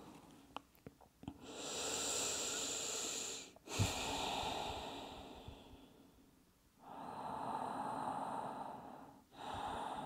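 A person's slow, deep breathing, heard close: long airy breaths of about two to three seconds each, swelling and fading, two full breaths in and out. A short knock sounds a little under four seconds in.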